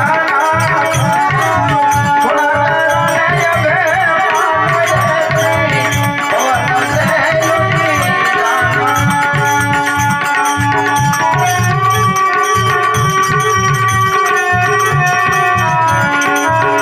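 Live folk music: a man sings with a wavering voice for about the first half, and then steady held melody notes take over. A tabla keeps an even beat throughout.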